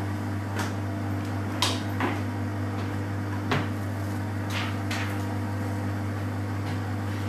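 Several sharp clicks and knocks in the first five seconds as an oven door is opened and silicone baking moulds are pulled out of the heating oven, over the steady hum of running kitchen appliances.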